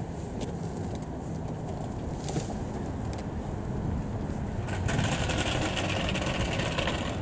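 A vehicle running with a steady low rumble, joined by a louder hiss of road or wind noise about five seconds in.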